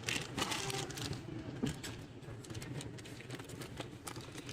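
Light, scattered clicks and soft rustling of small plastic toy figures and packaging being handled.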